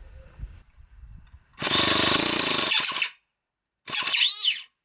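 Electric starter motor cranking a SEMTO ST-NF2 7cc two-cylinder four-stroke nitro engine through its starter belt, in two short bursts: the first about a second and a half, the second under a second with a whine that rises and falls in pitch. The engine does not catch, and the starter belt is slipping.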